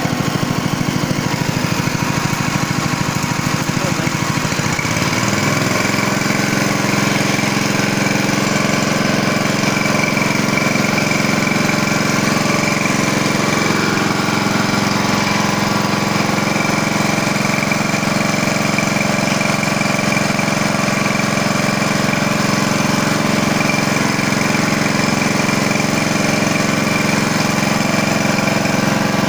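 Single-cylinder GX200-type four-stroke petrol engine running steadily, belt-driving a piston-pump power sprayer, with the hiss of the high-pressure water jet from the spray gun. The engine's note settles about five seconds in and then holds steady.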